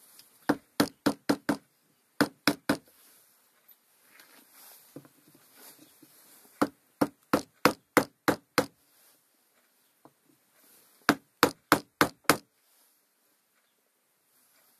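Hammer blows on a wooden block, driving a new seal into a tractor's input shaft housing: four runs of three to seven sharp knocks, about three a second, with short pauses between runs.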